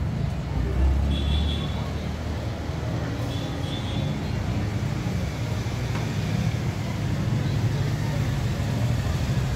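Steady low background rumble with faint voices in the background, and a few light clinks of cutlery against bowls about a second in and again a few seconds later.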